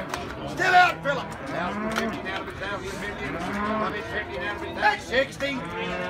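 Cattle mooing: several long, low moos one after another.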